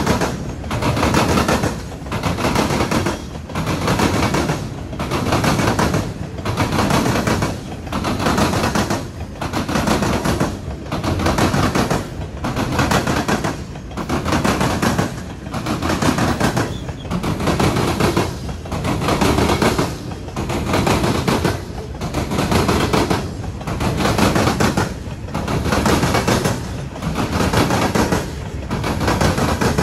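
Empty freight gondola cars rolling past close by, their steel wheels clattering over the track in a steady repeating rhythm, a loud clatter about once every second or so.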